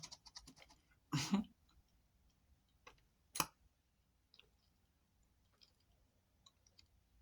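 Close-up mouth sounds of someone chewing a crunchy, chalky snack: a crunch just past one second, a sharp crunch about three and a half seconds in, and faint clicks and smacks between.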